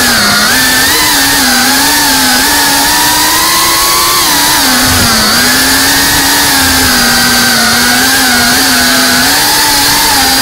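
FPV racing drone's motors and propellers whining in flight: a loud, steady buzzing tone whose pitch wavers up and down with the throttle.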